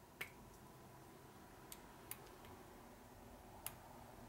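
Near silence with four light metallic clicks as small transmission parts and screws are handled by hand, the loudest just after the start and near the end.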